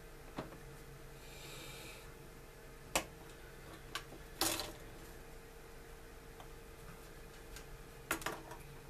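Scattered sharp clicks and light taps of small plastic model-kit parts and hobby tools being handled on a work mat, with a brief rustle about a second in and a double click near the end, over a steady faint hum.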